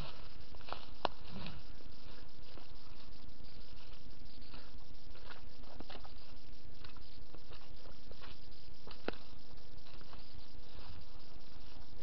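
Irregular light clicks and crackles over a steady hiss and a faint constant hum: footsteps and brushing through dry twigs and leaf litter in low bilberry undergrowth.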